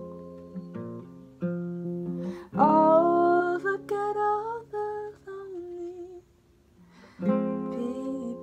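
Acoustic guitar playing chords that ring out, with a wordless sung note rising in pitch about two and a half seconds in. The guitar goes quiet for about a second near six seconds in, then another chord is struck.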